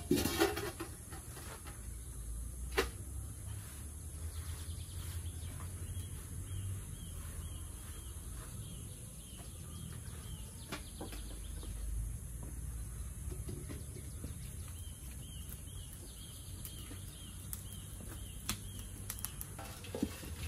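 Rural outdoor ambience. A bird repeats a short high chirp over and over in two runs, against a low wind rumble. There is soft rustling and scraping from tea leaves being rolled by hand on a woven bamboo tray, with a few light knocks.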